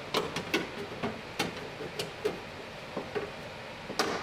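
Sharp, irregular clicks and light knocks of metal on metal as the window regulator and its motor are hung on their mounting bolts inside the steel door shell, with the loudest knock near the end.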